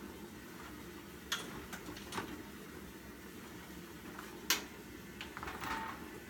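Short knocks and scrapes of a heavy wheeled generator's tube frame being shoved and settled into place on a cargo van floor, a few scattered knocks with the loudest about four and a half seconds in.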